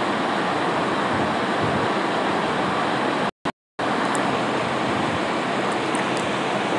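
A steady, even rushing hiss of background noise. It drops out to silence for about half a second a little past the middle.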